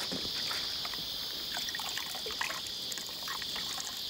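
Broom head wrapped in a stocking sloshing in a bucket of hot bicarb-and-vinegar solution, with water trickling and dripping off it, over a steady high-pitched insect chorus.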